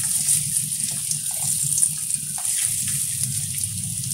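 Sliced bitter gourd (karela) frying in hot oil in a karahi, with a steady sizzle just after the slices go in, over a low steady hum.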